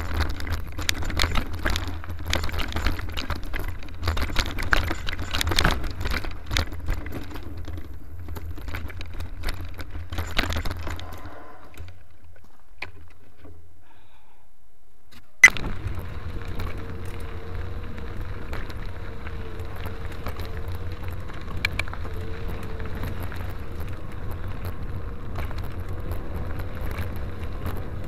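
Mountain bike rattling and clattering over a rough dirt trail, with many sharp clicks and jangles from the bike's loose parts over a low rolling rumble. About twelve seconds in the sound drops away; after a single sharp click it becomes a steadier, smoother rolling noise.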